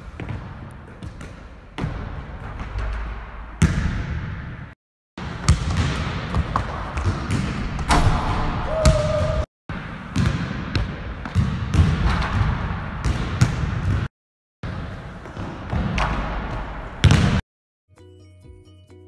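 A basketball dribbled on a hardwood gym floor, with repeated sharp bounces across several short clips broken by brief silences. About a second before the end, music starts.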